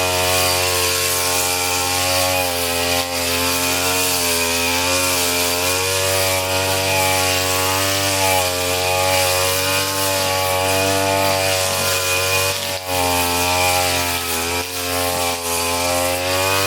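WADFOW 30.5 cc two-stroke brush cutter running at high revs while clearing brush, its engine note wavering slightly up and down with the load, with a brief dip about thirteen seconds in.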